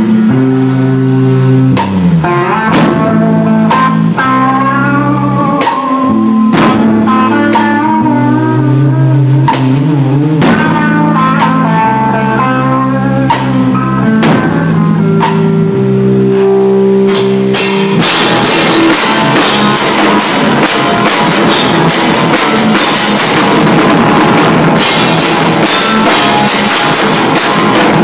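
Live heavy rock band playing loud: a distorted electric guitar holds slow, sustained, bending notes over scattered drum hits. About two-thirds of the way in, the full drum kit comes in with steady pounding and crashing cymbals, heard from right beside the kit.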